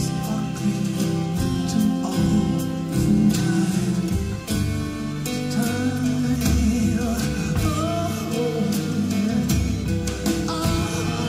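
A song with a sung vocal and guitar, played through a pair of JBL 4343 four-way studio monitors driven by a Schiit Freya tube preamp running 6SN7 tubes, and recorded by microphones aimed at the speakers. The level dips briefly a little before halfway.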